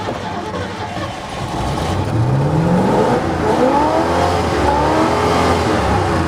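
Old 1970s Ford pickup truck engine heard from inside the cab. It runs rough and low, then is revved up about two seconds in, its pitch climbing and then swinging up and down with hard throttle blips. The revving is to clear out a badly flooded engine after a stall.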